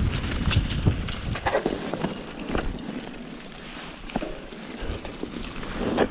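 Mountain bike running fast down a dirt trail: wind buffets the microphone while the tyres and frame rattle and knock over the bumps. The wind rumble eases for a few seconds in the middle.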